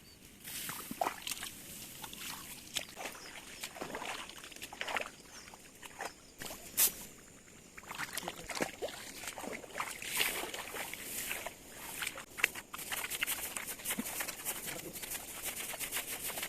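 Rice stalks rustling, with many irregular crisp snaps and clicks as they are cut and handled by hand.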